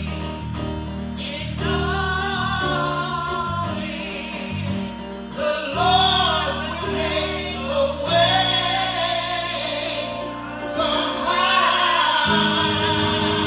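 Gospel singing by men and women with instrumental accompaniment, sustained sung notes over a steady bass.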